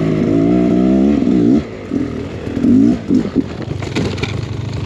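Dirt bike engine revving hard for about a second and a half on a steep climb, then breaking into short throttle blips as the bike comes to a halt on the slope.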